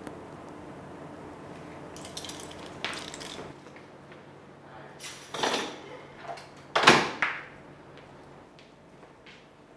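Rustling and a few clinks of handled gear as a badge on a neck chain is lifted off. The loudest burst comes near the middle.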